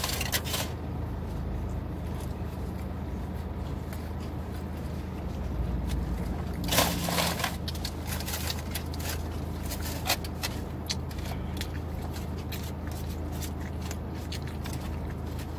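Eating a burrito in a car: the wrapper crinkles in short bursts, the loudest about seven seconds in, with small crackles and chewing, over a steady low hum inside the car.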